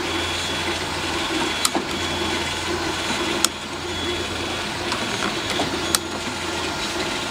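OO gauge model locomotive's small electric motor running with a steady hum as it moves wagons along the track. A few sharp clicks come about two seconds apart, and the hum stops shortly before the end.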